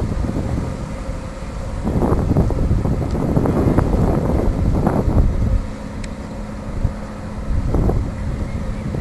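Wind buffeting the camera's microphone in uneven gusts over a low rumble. A little past halfway, a steady low engine hum sets in beneath it.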